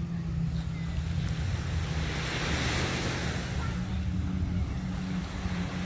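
Sea waves washing on a beach, one surge swelling about two seconds in, with wind rumbling on the microphone.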